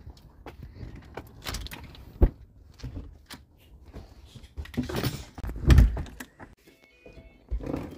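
Front door being opened by hand: clicks and knocks from the latch, lever handle and door. There is a sharp click about two seconds in and heavier thumps around five to six seconds in.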